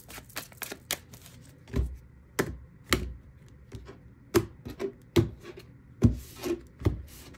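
A tarot deck being shuffled by hand, then cut and set down in piles on a wooden desk. A quick patter of card clicks comes first, then about seven sharp slaps and thuds of card stacks on the desk, roughly one a second.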